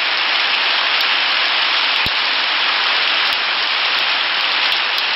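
Recorded rain sound effect played from a phone app: a steady hiss of heavy rainfall.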